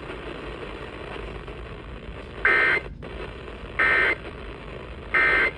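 Emergency Alert System End-of-Message signal: three short, identical bursts of buzzy SAME digital data tones about a second and a half apart, marking the end of the flood warning, over a steady hiss of broadcast noise.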